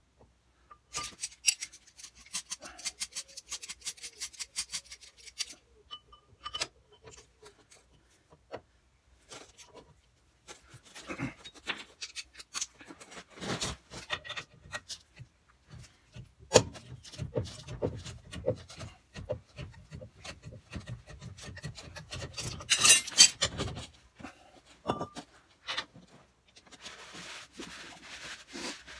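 Metal clinks, clicks and scrapes of a three-legged puller being fitted to a brake drum and its centre screw worked in to draw the drum off the hub, with a louder clatter about 23 seconds in.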